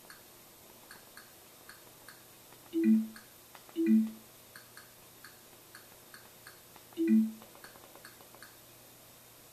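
Roku on-screen keyboard sound effect: three short, low two-note bloops, two about a second apart and a third some three seconds later, each as a letter is entered in the search box. Faint, even ticking runs underneath.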